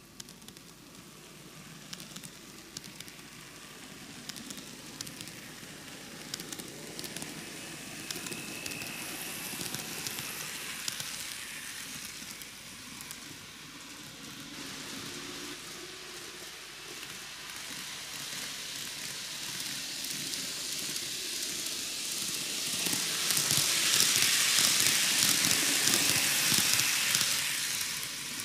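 N-gauge model train (TOMIX 733 series) running around the track: a steady rushing of small wheels on the rails, peppered with small clicks as they cross rail joints. It grows steadily louder as the train comes round the loop and is loudest near the end.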